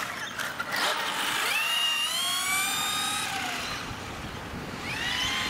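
Vintage Kyosho Turbo Optima Mid RC buggy's brushed electric motor and drivetrain whining as the car accelerates, the pitch rising twice: once about a second and a half in and again near the end.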